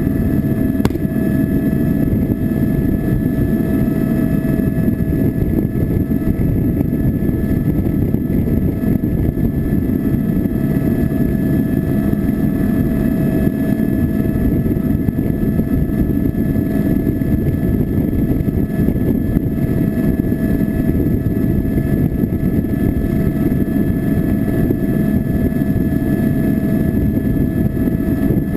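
Steady engine noise: a deep rumble with a constant high whine layered over it, unchanging throughout.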